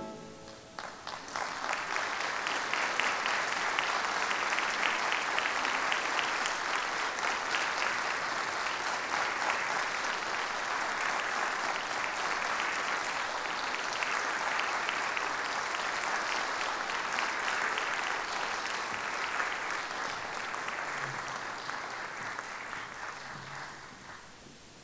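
Concert audience applauding as the orchestra's piece ends, the clapping swelling within the first couple of seconds, holding steady, then thinning out and dying away over the last few seconds.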